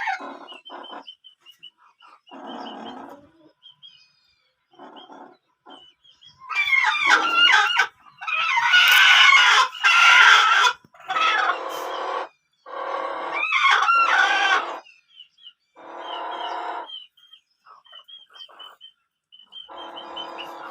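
Chickens calling, with roosters crowing several times in a row through the middle, each crow lasting a second or two and loud. Short high peeps and quieter clucks fall in the gaps.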